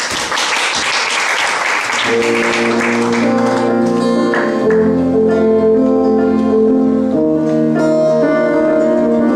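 Audience applauding, dying away over the first few seconds, as a live instrumental song intro with sustained chords begins about two seconds in.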